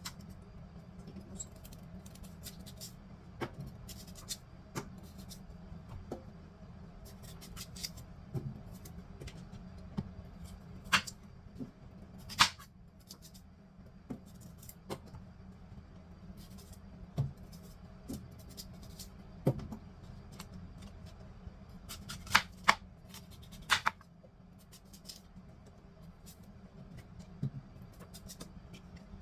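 Food being cut up by hand in a kitchen: irregular sharp clicks and taps of a blade, with a few louder clusters about a third of the way in and again past two-thirds, over a steady low hum.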